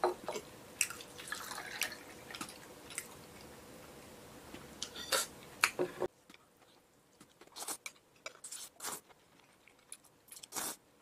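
A drink poured from a glass bottle into a small glass, with scattered light clinks and drips as the glass fills and the bottle is set down. In the second half there are short, sparse eating sounds: cold noodles being slurped and chewed.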